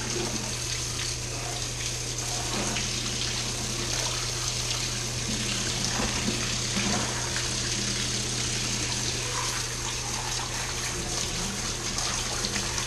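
Handheld shower head spraying water over a muddy RC truck and the shower tray: a steady hiss of spray and splashing, with a steady low hum beneath.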